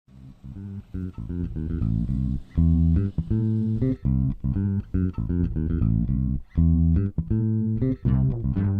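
Intro music: a bass guitar line with plucked guitar, a quick run of separate notes with a steady beat.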